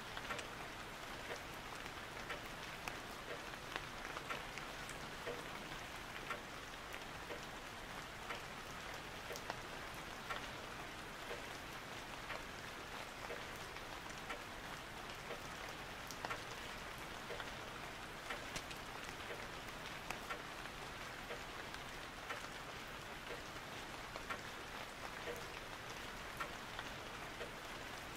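Steady rain: an even hiss with many small, random drop ticks, unchanging throughout.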